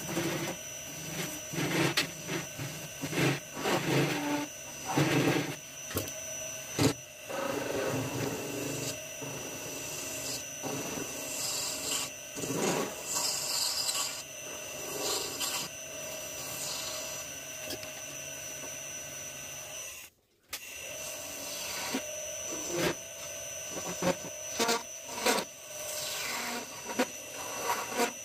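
Hand-held turning tool scraping and cutting a spinning brass bar on a lathe, in repeated short bursts over the lathe's steady motor hum. The sound drops out briefly about two-thirds of the way through.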